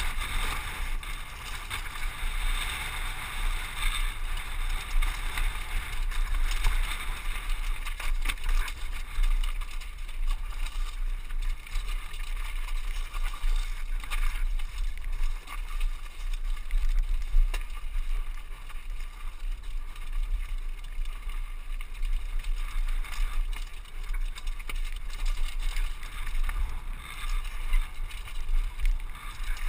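Wind buffeting a helmet-mounted camera microphone during a downhill mountain-bike descent, with tyres crunching over loose rock and gravel and the bike rattling, plus scattered sharp knocks from rocks and bumps.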